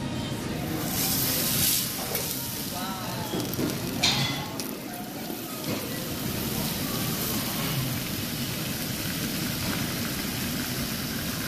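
A5 Wagyu beef sizzling on a tabletop yakiniku grill. A steady hiss flares louder about a second in and again, sharply, about four seconds in.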